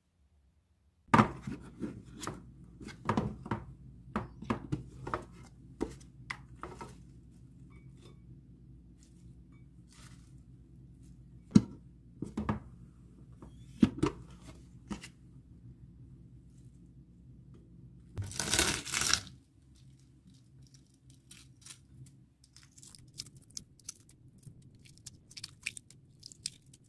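Kitchen handling sounds: a run of clicks and knocks as a plastic food container and its lid are handled and cherry tomatoes are set on a salad, a brief tearing rustle lasting about a second, then light crackling as a boiled egg's shell is cracked and peeled near the end.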